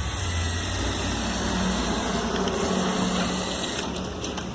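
Small electric motor and plastic gearing of a Lego Technic model truck whirring steadily. A low hum gives way to a steadier, higher whine about a second in, and the sound eases off near the end.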